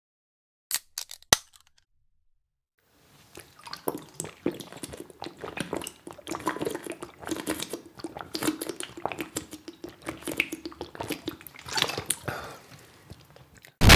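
Sound effects of liquid: three sharp clicks about a second in, then about ten seconds of dense, wet clicking, crackling and dripping. It ends in a sudden loud burst of noise.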